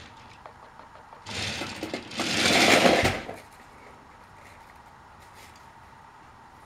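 Small electric motor of a Trackmaster motorized toy train buzzing loudly for about two seconds, getting louder partway through, then stopping abruptly.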